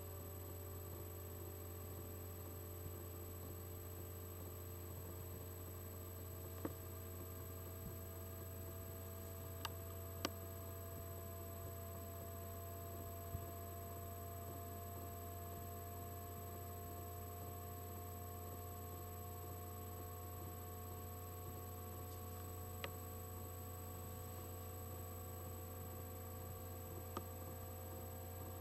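Steady low hum with faint thin tones above it that drift slowly upward in pitch, and a few faint isolated clicks.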